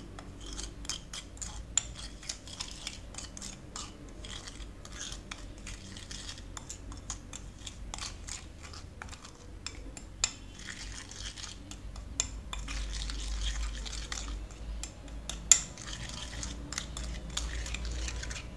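Metal spoon scraping and clinking against a ceramic plate, stirring a gritty paste of ground coffee, granulated sugar and lemon juice, with one sharper clink about fifteen seconds in.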